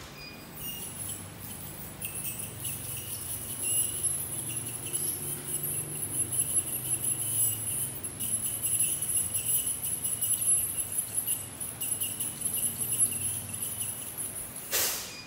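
Dental handpiece running with a steady high-pitched whine and a low hum under it, its pitch wavering under load; it cuts off suddenly near the end.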